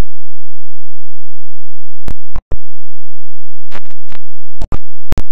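Heavily clipped, digitally distorted audio effect: a steady low hum at full volume, broken by a few short crackling pops with brief dropouts about two seconds in, around four seconds in and near the end.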